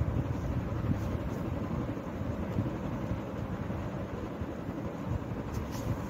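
Steady low background rumble with a few faint ticks.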